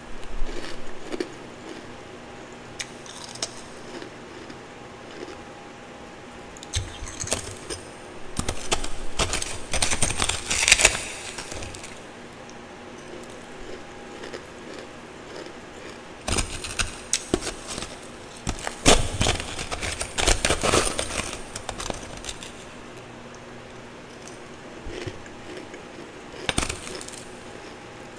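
Close-up eating of twice-refrozen powdery ice: two long spells of dense, loud crunching as mouthfuls are chewed, with shorter bursts of a metal spoon clinking and scraping into the ice near the start and near the end.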